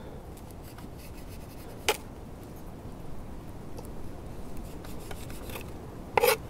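A knife slicing off loose Dyneema fibre bundles from a hollow-braid rope end on a wooden board, to taper it for an eye splice. Quiet rubbing and scraping, with a sharp click about two seconds in and a louder snap near the end.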